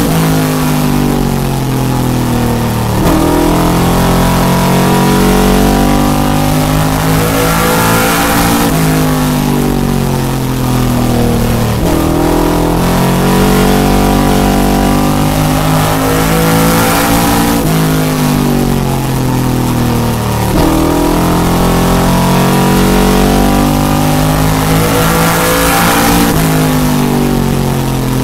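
Race car engine heard from inside the car, lapping a short oval. Its pitch climbs and drops again about every four to five seconds as the driver accelerates down the straights and lifts for the turns.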